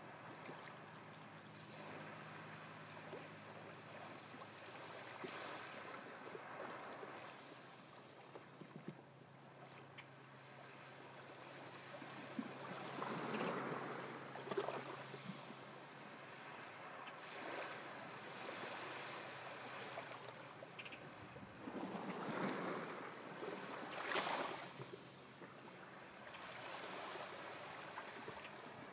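Small waves lapping and breaking on a sandy shore of a calm sea, with several soft surges of wash, the strongest about two-thirds of the way through. A faint steady low hum runs under the first half.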